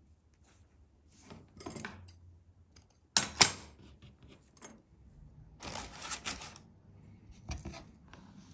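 Hands tying cotton string around a ball of dough on a wooden board: soft tugging and rustling handling noises, with a sharp metallic clatter a little over three seconds in, as metal scissors are set down on the wooden board.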